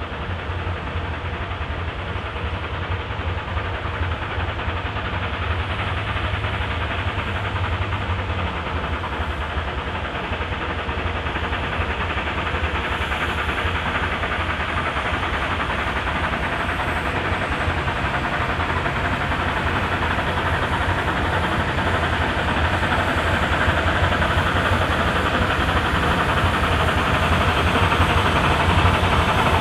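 Narrow-gauge steam train running, a steady rumble and hiss that grows gradually louder.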